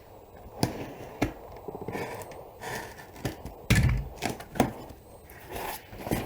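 Cardboard parcel being opened and its packaging handled: scattered clicks, crinkles and light knocks, with one heavier thump a little past halfway.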